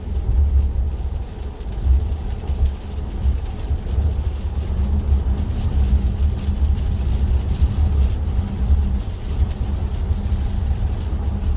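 Cabin noise of a Tesla Model 3 driving on a wet road: a steady low rumble of tyres and road with a hiss above it.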